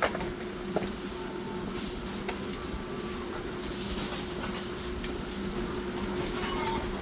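A machine running steadily with a constant hum and hiss, and a few sharp clicks or knocks over it.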